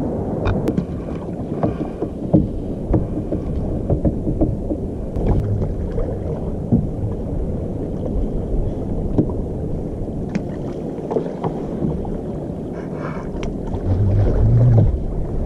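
Wooden fishing boat being rowed with an oar and no engine: water sloshing against the hull, with scattered short knocks.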